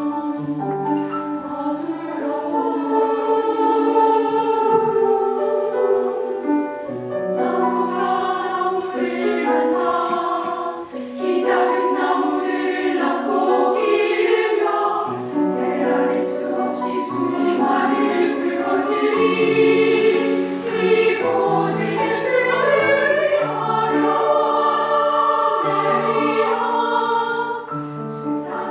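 A choir singing in several parts, with held notes that change every second or so.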